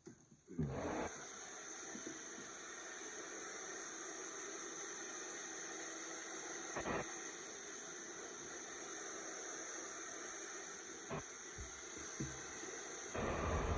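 Handheld hair dryer switched on about half a second in, blowing with a steady rushing hiss and a faint motor whine; a deeper rumble of airflow joins near the end.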